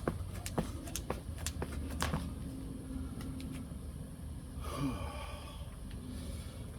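A person out of breath from exercise: a few sharp clicks in the first two seconds, then a heavy breath about five seconds in, over a steady low hum.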